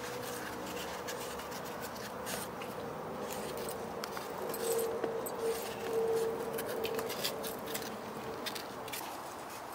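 Kitchen knife peeling the skin off raw green bananas: many small scraping clicks, over a steady tone that swells for a few seconds in the middle.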